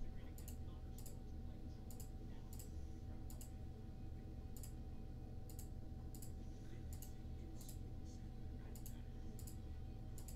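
Faint, irregular clicking at a computer keyboard and mouse, about a dozen clicks spaced half a second to a second apart, over a steady low electrical hum.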